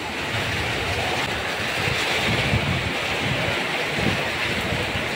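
Heavy rain pouring onto a swimming pool's water and the paving around it, a steady hiss, with wind buffeting the microphone in low, uneven rumbles.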